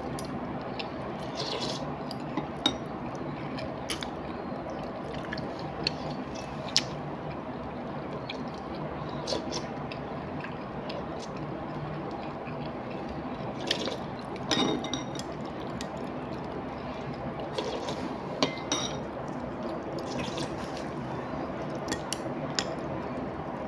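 Eating a bowl of laksa noodles: scattered wet slurping and squishing of noodles and soup, with occasional light clicks of chopsticks against the ceramic bowl, over a steady background hum.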